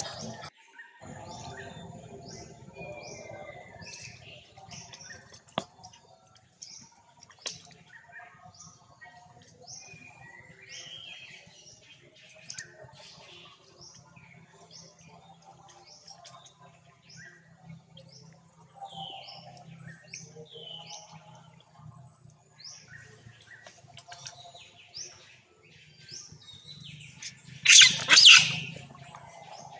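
Wild birds chirping over and over in short falling calls. Near the end, a loud double shriek as two monkeys scuffle.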